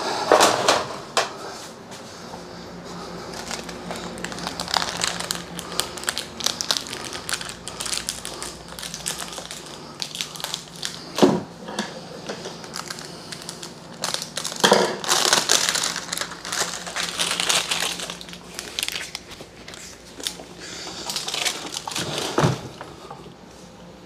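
Rustling, crinkling and scraping of hands-on work on wiring, with sharper knocks about 11, 15 and 22 seconds in, over a faint steady low hum.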